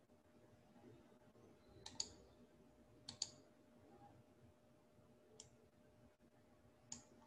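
Near silence broken by four faint sharp clicks at a computer desk, the first two doubled, over a faint steady hum.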